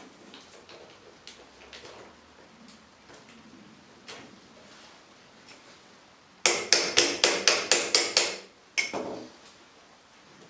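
A hand wrench working the lower mounting bolt of a Kreidler moped's rear shock absorber: faint knocks of handling, then, about six seconds in, a quick even run of about ten loud metallic clicks lasting some two seconds, followed by one or two more.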